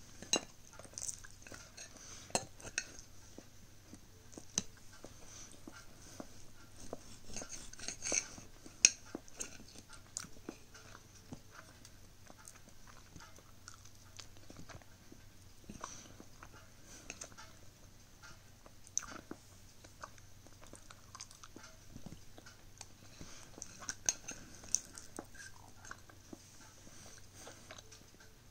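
Someone chewing and biting a homemade pop-tart-style pastry, with a fork and serrated knife clicking and scraping against a ceramic plate now and then. The loudest click comes about nine seconds in.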